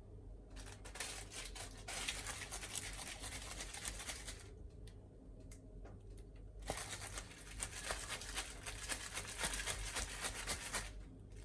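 Scratchy rubbing and crackling handling noise, in two stretches of about four seconds with a short pause between.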